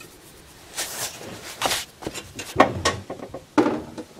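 A cloth shop towel rustling and rubbing against a small metal engine part as it is wiped, in a handful of short, uneven scuffs.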